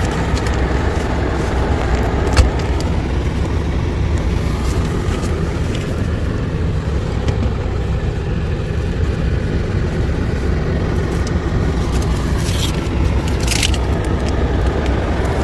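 A car driving, with a steady low rumble of engine and tyres inside the vehicle. There is a sharp click about two and a half seconds in and brief hissing near the end.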